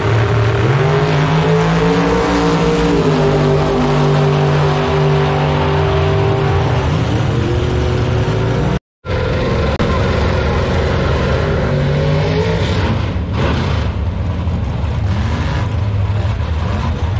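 Doorslammer drag-race cars at full throttle down the strip, the engine note climbing over the first two seconds and then holding. After a short dropout about nine seconds in, a low, steady engine rumble from cars at the starting line.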